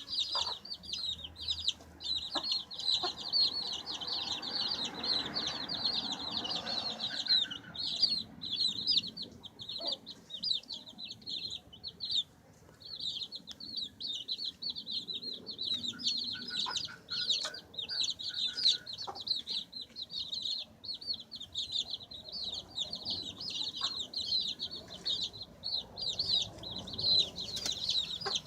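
Many baby chicks peeping without pause, short high-pitched peeps overlapping one another, with a few faint taps now and then.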